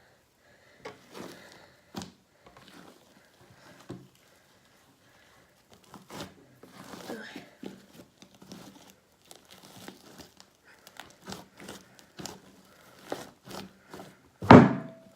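Homemade slime being handled and worked by hand: irregular sticky crackling, squishing and small clicks, with one much louder sudden noise near the end.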